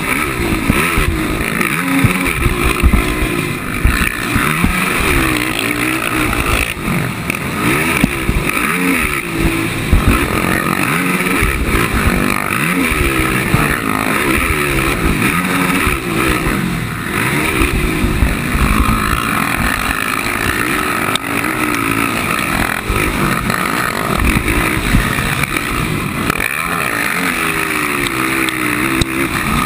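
A 450-class racing ATV engine ridden hard on a motocross track, its pitch rising and falling again and again as the throttle is worked and gears change. Wind and track rumble buffet the helmet-mounted microphone.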